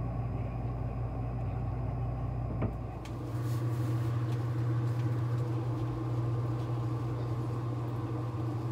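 A steady low mechanical hum, like a motor or fan running, with a single click a little under three seconds in, after which the hum gets slightly louder.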